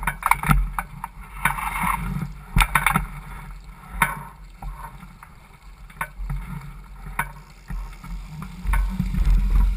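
Water rushing and slapping along the hull of a Laser 4000 sailing dinghy under way, over a low rumble that swells near the end. A few sharp knocks from the boat come in the first four seconds.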